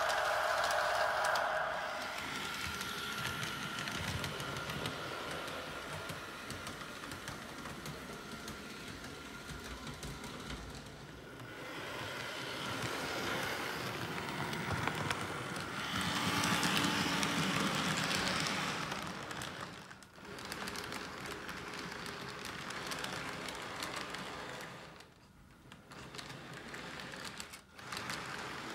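HO scale model trains rolling along the track, with a rapid light clicking from the wheels over the rail joints. The sound is loudest at the start and again about sixteen seconds in, and drops out briefly a few times near the end.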